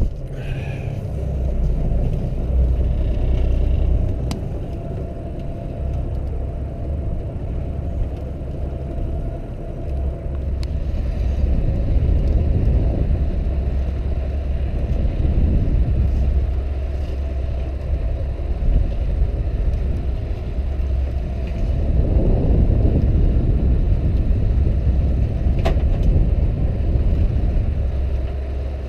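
Fishing boat's engine running with a steady low rumble, mixed with wind and sea noise on the microphone.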